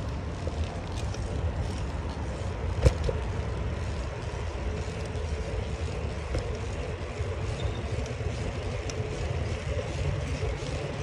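Steady rushing noise of a bicycle ride along a road: wind on the microphone and tyres rolling, with a single sharp click about three seconds in.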